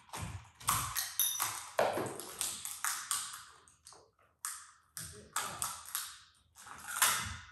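A run of sharp taps and clinks with short ringing, about two a second, from the old ceiling light fitting being worked loose by hand.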